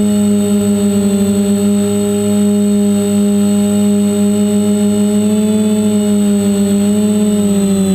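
Quadcopter's electric motors and propellers running at a steady throttle: a loud, even hum whose pitch wavers slightly as the throttle shifts, with a thin high whine above it.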